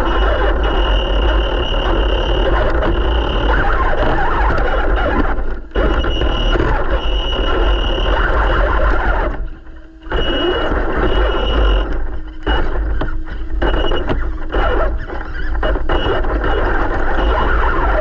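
Traxxas TRX4 Sport RC crawler driving, heard from a GoPro mounted on its body: a constant rattle of the electric motor and gear drivetrain with tyre and ground noise, and a high whine that pulses on and off. The noise cuts out briefly about six seconds in and again near ten seconds, then comes in short stop-start bursts as the throttle is let off and reapplied.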